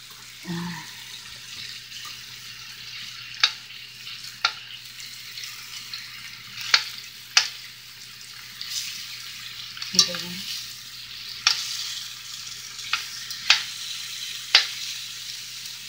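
Pork pieces frying in a cast-iron skillet with a steady sizzle as they brown. Metal tongs click sharply against the pan about ten times as the pieces are turned.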